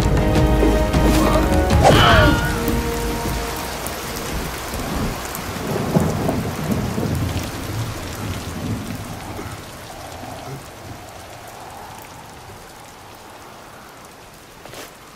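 Rain falling with low thunder rumble. It opens loud under ringing musical tones that die away about two seconds in, then the rain fades steadily.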